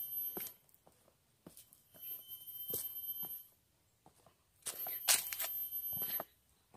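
A forest insect buzzing in three high-pitched bursts of about a second and a half each, with short gaps between them. Light footsteps on trail steps come in between the bursts.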